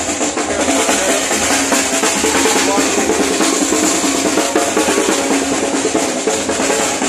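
Marching drums playing a fast, steady beat, among them a bass drum carried by a walking drummer.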